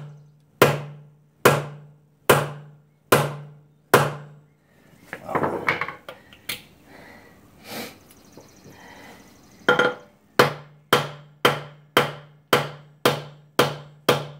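Small sledgehammer striking a steel socket onto a locking wheel nut, driving it on so it bites into the nut. There are five blows about a second apart, each with a short metallic ring, then a pause of about five seconds with some rustling, then a quicker run of about nine blows, roughly two a second.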